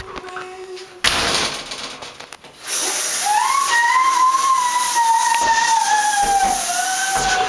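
Shower spray hissing, first a short burst about a second in, then running steadily from about three seconds in. Over the steady spray a single high, wavering tone slides slowly downward.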